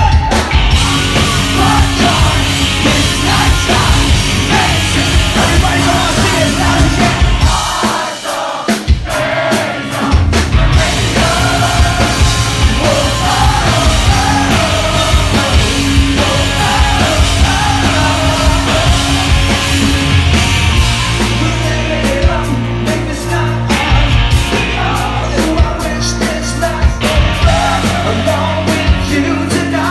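Live rock band playing: electric guitars, bass and drums, with a male lead singer carrying the melody. About eight seconds in, the low end drops out briefly before the full band comes back in.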